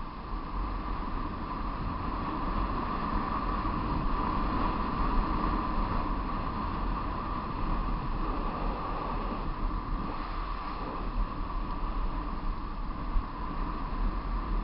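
Wind rushing over the microphone and road noise of a vehicle travelling downhill at speed, with a steady hum held throughout.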